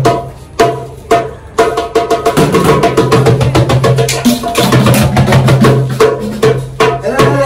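Hand percussion played live: a large frame drum and a riq-style jingle tambourine beaten in a fast dance rhythm, several strokes a second, with a couple of short breaks early on before the beat runs steadily on.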